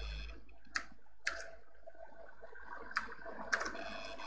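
Four sharp, separate clicks from working a computer, copying text and pasting it into another program, over a faint steady hum.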